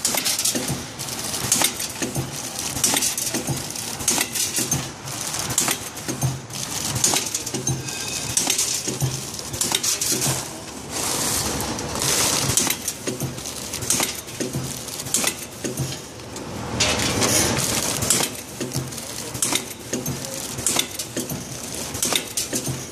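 Vertical form-fill-seal packing machine with a measuring-cup filler running: a low mechanical pulse about once a second under a constant clatter of clicks and metallic chinks as snacks are dosed and bags are sealed and cut.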